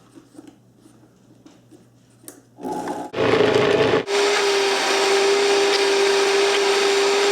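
Countertop blender starting up about two and a half seconds in, dropping out briefly after another second or so, then running steadily with an even whine, pureeing cooked potato with bacon and garlic into a smooth paste. It cuts off abruptly at the end.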